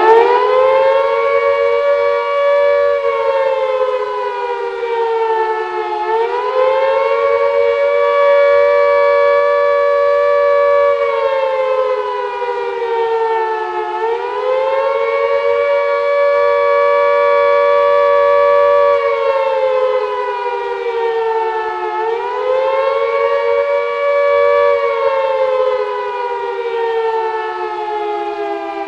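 World War II air-raid siren wailing the air-raid warning: its pitch climbs, holds high for several seconds, then sags and climbs again about every eight seconds. Near the end it starts winding down in a long falling glide.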